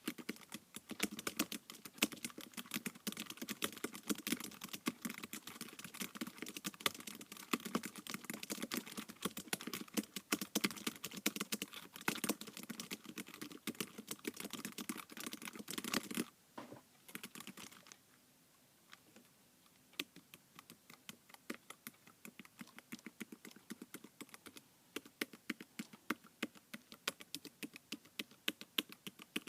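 Typing on an iPad keyboard: fast, continuous keystrokes that stop about halfway through, followed by slower, separate key presses.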